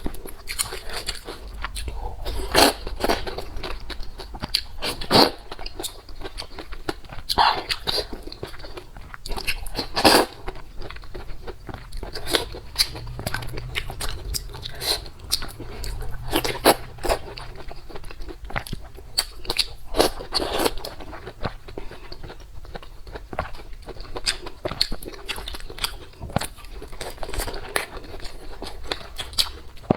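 A person biting and chewing food, with irregular crunchy bites and mouth clicks.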